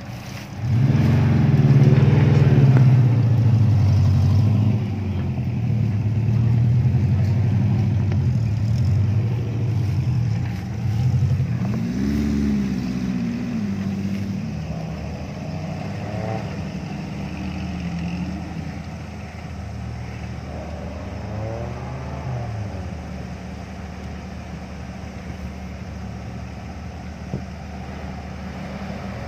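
Suzuki Jimny SJ-series off-road engines revving under load as the vehicles climb a rough grassy slope. The engine is loudest for the first few seconds, then the revs rise and fall several more times.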